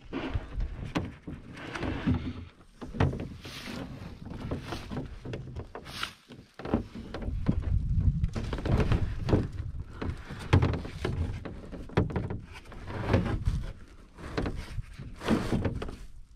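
Handling noise of a Hornbeck solo canoe being lifted and flipped overhead onto the carrier's shoulders: a run of irregular knocks, bumps and scrapes against the hull, with rustling of gear and straps.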